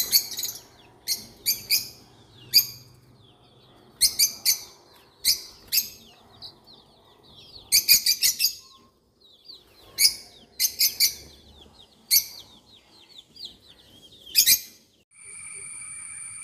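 Bird calls: quick groups of three to five sharp, high chirps, repeated every second or two. Near the end the chirping stops and a steady high-pitched drone begins.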